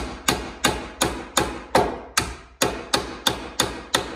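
Hammer driving the mounting nail of a plastic nail-on electrical box into a wooden stud: a quick, even run of sharp blows, about three a second, that stops just before the end.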